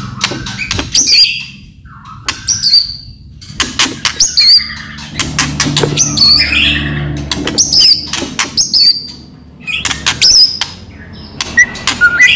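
White-rumped shama in loud full song: fast runs of hard clicking rattles broken up by short, slurred whistle notes.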